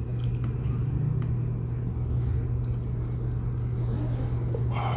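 A steady low hum with some rumble under it. A brief hiss comes just before the end.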